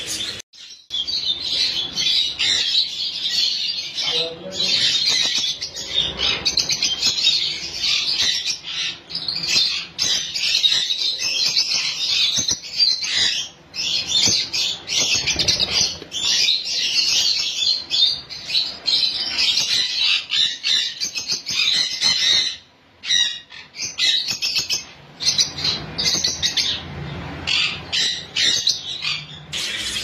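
A flock of caged small parrots, budgerigars and peach-faced lovebirds, chattering and chirping continuously in high, busy calls, with a few brief breaks.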